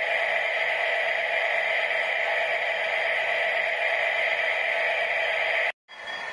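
Diesel engine idle sound of a Hornby TTS sound decoder, played through the small speaker inside a Class 66 model locomotive: a steady, thin, hissy rumble with no deep bass. It cuts off abruptly near the end.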